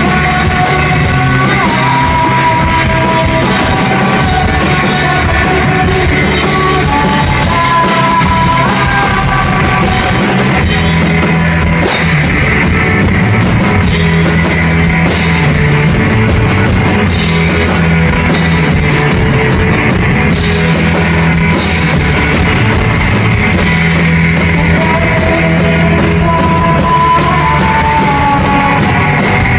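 A rock band playing live: drum kit with cymbals keeping a steady beat under electric guitar.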